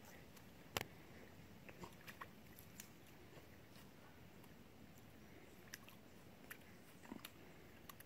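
A puppy biting and gnawing at a small lump on the ground: faint, scattered crunchy clicks at irregular intervals over a very quiet background.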